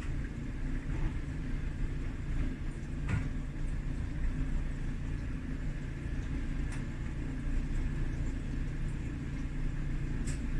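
Steady low rumble with a few faint clicks and knocks of hand work on the dryer while its drive belt is unhooked from the motor pulley.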